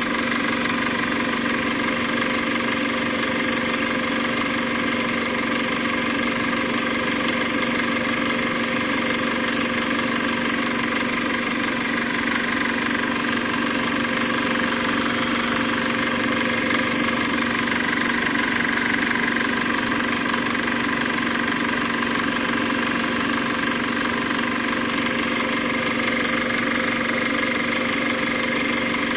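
A machine running steadily: a constant, unchanging mechanical hum with fixed pitches and no rise or fall.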